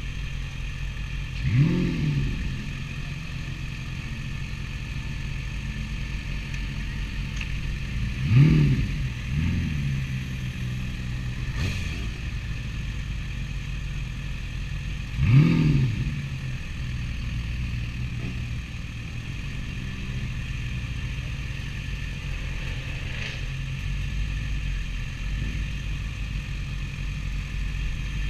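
Kawasaki ZX-6R's 600cc inline-four idling, with three quick throttle blips: near the start, about 8 seconds in and about 15 seconds in. Each blip is a sharp rise and fall in pitch.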